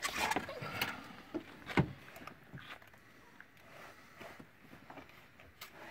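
Scattered light knocks and clicks of plastic under-hood parts being handled on a pickup truck, with one sharper knock about two seconds in.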